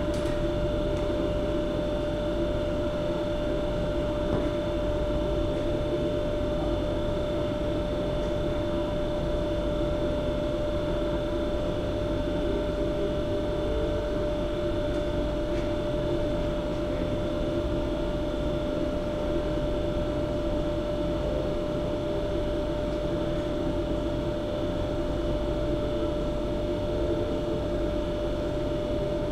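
Steady whirring of an electric fan motor running on, with a constant hum.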